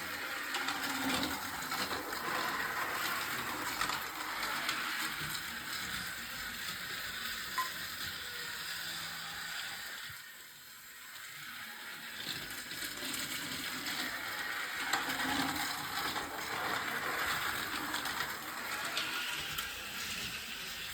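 Small mechanism running with a steady clicking, whirring rattle that dips quieter about ten seconds in and then grows louder again.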